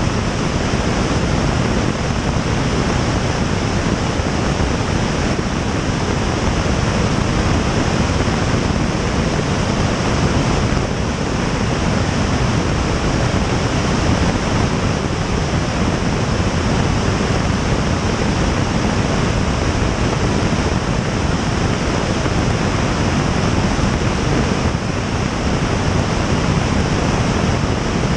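Loud, steady rush of airflow over an external camera on the tail of a Piper Tomahawk in flight: an even wind noise with no distinct engine tone standing out.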